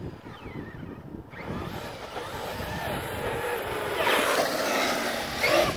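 Traxxas X-Maxx RC monster truck's brushless electric drive and tyres running on asphalt as it drives up, growing louder as it approaches and loudest as it passes close about four to five and a half seconds in.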